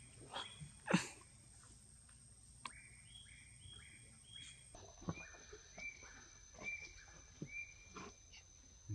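Forest ambience of calling insects and birds: a steady high-pitched drone that steps down in pitch about halfway through, over runs of short repeated chirps, with scattered soft clicks, the loudest about a second in.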